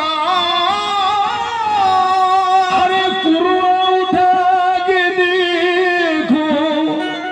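Qawwali music: harmoniums hold a sustained melody while a male voice sings long, drawn-out notes.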